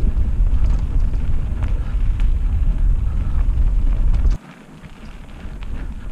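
Wind buffeting an action camera's microphone, a loud low rumble with scattered light clicks and rattles, dropping off suddenly about four seconds in.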